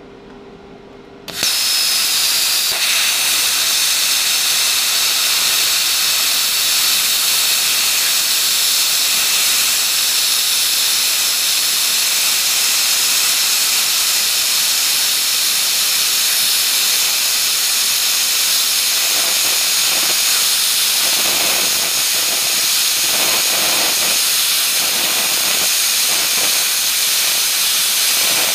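PrimeWeld CUT60 plasma cutter's arc striking about a second in and then cutting quarter-inch steel flat bar on 110 V at 20 amps: a loud, steady hiss of the air-plasma jet that turns rougher and more uneven in the later part.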